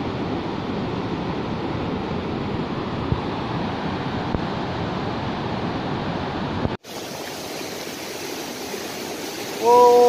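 A muddy, flood-swollen mountain river rushes over boulders in a steady wash of water noise, which drops slightly after an abrupt cut about two-thirds of the way through. Near the end, a short steady tone sounds for under a second, louder than the water.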